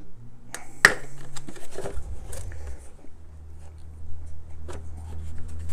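Blow-moulded plastic tool case of a brake caliper tool set being handled and opened: its latches and lid click and knock, with one loud sharp click about a second in and fainter clicks after, over a low steady hum.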